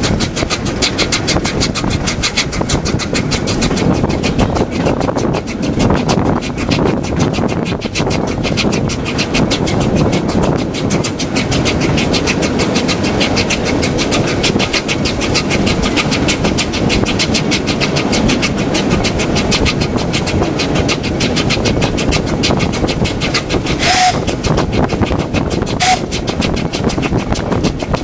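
A train running on the rails, with a fast, even ticking throughout. Two short, sharp sounds come near the end.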